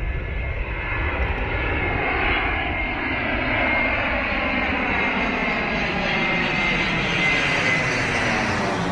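Twin-engine jet airliner on landing approach passing low overhead: the engine noise grows about a second in and stays loud, with a steady high-pitched whine over the roar.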